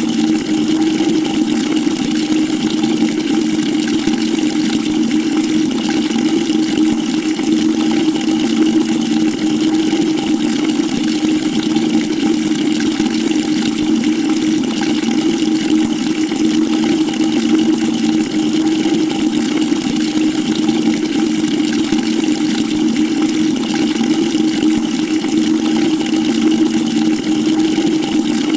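Water running steadily from a tap into a bucket: an unbroken rushing splash with a steady low tone through it, not changing in pitch.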